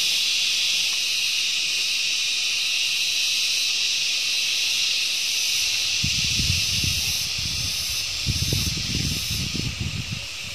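Steady, loud, high-pitched drone of an insect chorus. From about six seconds in, irregular low thumps and rumbles join it.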